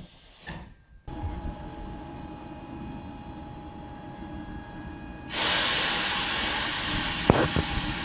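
ČD 'Eso' electric locomotive moving slowly: a steady hum with a few held tones sets in about a second in, then a loud hiss of air starts about five seconds in and carries on, with a sharp click near the end.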